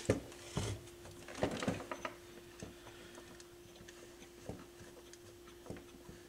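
Scattered light clicks and knocks from hands fitting a turntable head shell and handling test-lead clips, several in the first two seconds and then a few sparse ones. A faint steady hum runs underneath.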